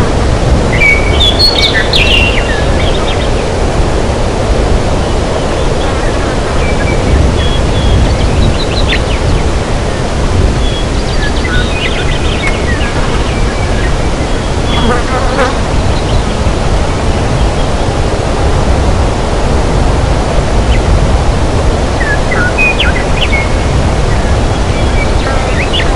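Forest ambience: a steady rushing noise, heaviest in the low end, with short bird chirps scattered through it now and then.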